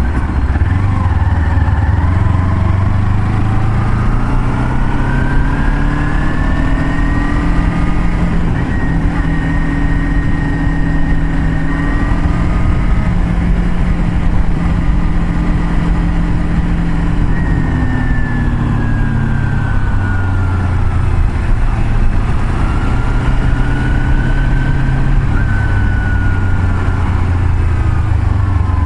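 Vehicle engine and road noise at highway speed. The engine note rises over the first several seconds, holds steady, drops off in the middle and climbs again near the end, under a constant low rumble.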